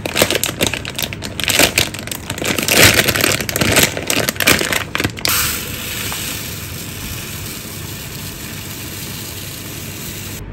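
Plastic bag of uncooked rice crinkling and crackling as its bag clip comes off and the bag is opened. From about five seconds in, a steady pour of raw rice grains running from the bag into a plastic measuring jug.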